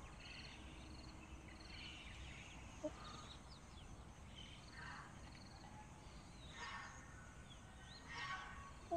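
Faint calls from chickens in a hen house: a few short calls in the second half, with a faint repeated high chirp in the first two seconds.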